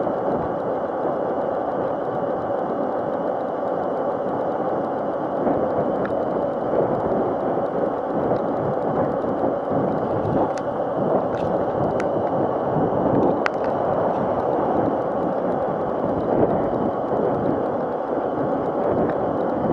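Razor MX500 electric mini dirt bike riding on paved ground: a steady rush of tyre, wind and drive noise with a faint steady whine, and a few sharp ticks about halfway through.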